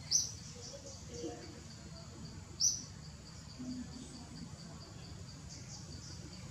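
High-pitched insect chirping in forest: a steady, rapid pulsing, with a louder brief chirp just after the start and again about two and a half seconds in.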